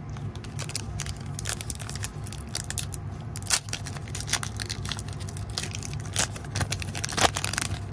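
Thick glossy Upper Deck Artifacts hockey trading cards being handled: a rapid run of scraping, flicking and clicking as cards are slid apart and set down on a stack, over a steady low hum.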